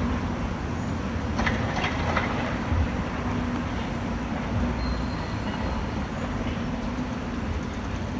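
Steady low city rumble with a constant low hum, and a few light clicks about a second and a half in.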